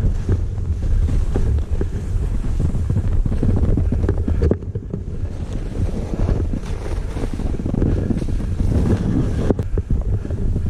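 Wind buffeting a GoPro action camera's microphone as a snowboarder rides fast downhill through powder, a loud, steady low rumble with the board's hiss through the snow beneath it. It eases briefly about four and a half seconds in.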